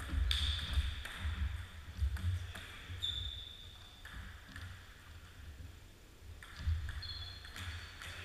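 Table tennis ball clicking off bats, table and floor in irregular sharp taps, over low thuds of players' footsteps on a wooden floor.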